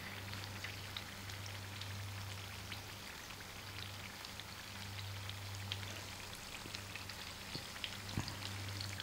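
Masala-coated seer fish steaks shallow-frying in ghee over a low flame: a gentle sizzle with scattered small crackles. A faint steady low hum runs underneath.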